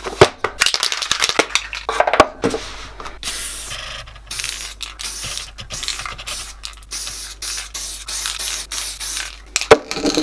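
Sheets of paper rustling as they are handled, then an aerosol spray-paint can hissing in repeated short bursts as paint is sprayed through a stencil onto paper.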